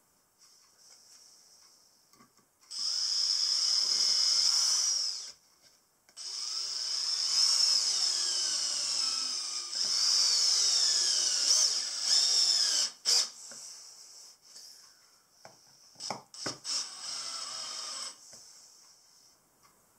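Makita 18-volt cordless drill driving screws into pine timber: two long runs of motor whine whose pitch sags and recovers as the screws bite, then a few sharp knocks and a short, quieter final run.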